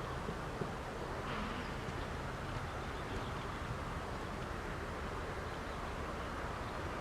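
Steady outdoor background noise, an even rushing like wind and rustling foliage, with no clear single event.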